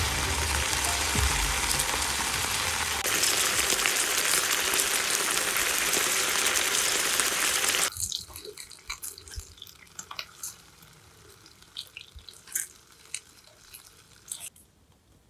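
Meat sizzling loudly in a frying pan over a wood-fired hobo stove. About eight seconds in it drops to a faint sizzle with scattered sharp clicks.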